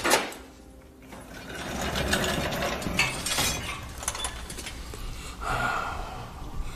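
Mechanical rattling and clanking with a few sharp clicks, opening with a sharp knock.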